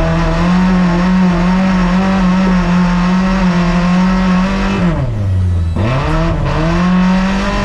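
Lada Niva off-road race car's engine held at high revs, then the revs drop sharply about five seconds in and climb straight back up within about a second, held high again to the end.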